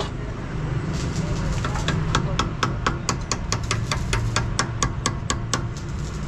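Metal hand tool clicking against the axle nut on a truck's rear wheel hub spindle. A quick run of sharp metallic clicks starts about a second in, sparse at first and then about four a second, and stops shortly before the end, over a steady low rumble.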